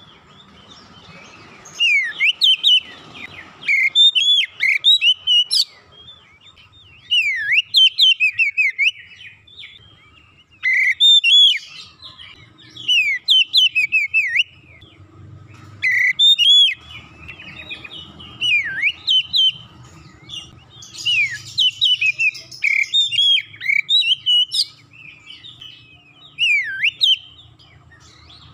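Oriental magpie-robin singing: loud bouts of rapid, clear whistled phrases with swooping notes, each bout a second or two long, with short pauses between them.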